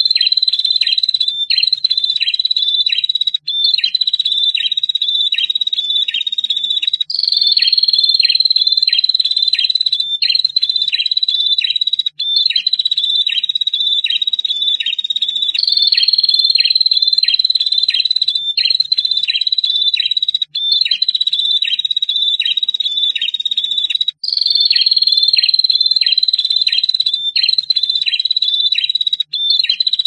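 Prenjak (prinia) calling a long, high, thin trill, the 'ngetir' call, with quick downward chips about four a second. It comes in phrases of two to four seconds with brief breaks between them.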